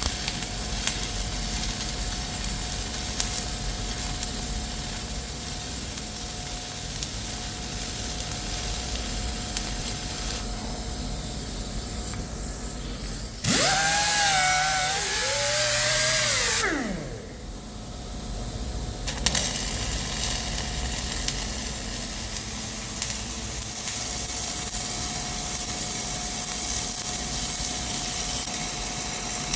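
Steady workshop machine noise with a constant hum. About halfway through, a power tool starts abruptly, runs loudly for about three seconds and spins down.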